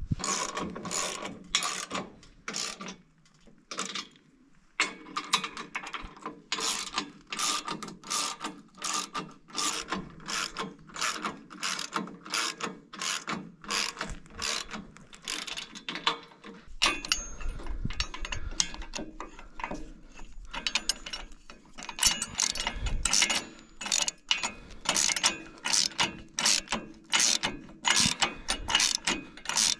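Hand ratchet wrench clicking steadily as it tightens a nut on a bolt, about three clicks a second, with a short pause a few seconds in.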